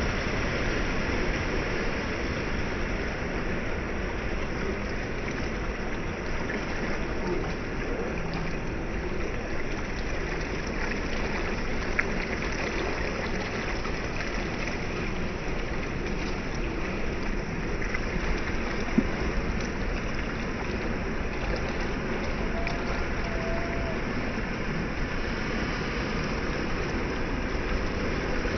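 Ocean surf washing over and around a rock breakwater: a steady rush of moving water. A sharp click sounds about twelve seconds in and another about nineteen seconds in.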